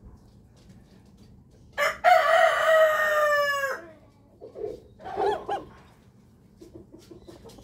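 Rooster crowing once, about two seconds in: a short opening note, then a long held note that sinks slightly at the end. A few quieter, lower wavering calls follow.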